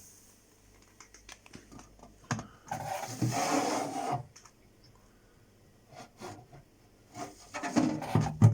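Plastic freezer trays of a fridge-freezer being handled: light clicks, then a rubbing scrape of about a second and a half as a tray slides, then a run of knocks ending in a sharp knock near the end.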